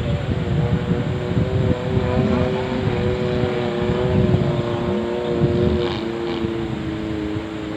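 Off-road jeep's engine running steadily, its pitch sagging slowly, over a heavy low rumble from the ride.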